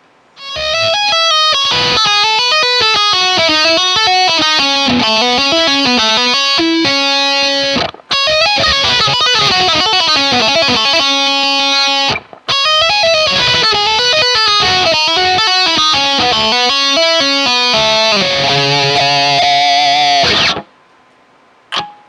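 Ibanez RGIT20FE electric guitar played through its active EMG bridge humbucker: fast solo licks and melodic runs. The playing stops briefly twice and ends on a held note with vibrato, about a second and a half before the end.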